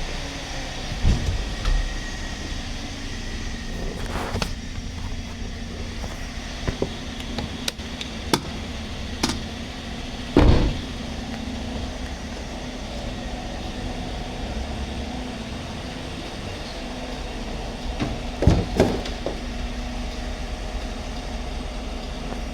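GMC Sierra V8 engine idling steadily after its fuel injectors were replaced for a cylinder 3 misfire, with several sharp clicks and knocks over it, the loudest about ten seconds in and two more near the end.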